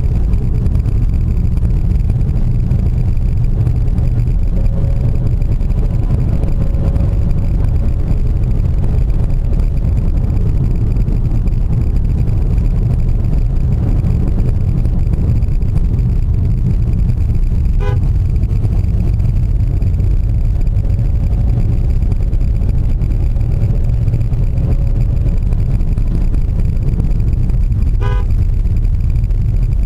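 A car driving along a narrow asphalt road, heard from inside the cabin: a steady low rumble of engine and tyres. Two short beeps cut through, one a little past the middle and one near the end.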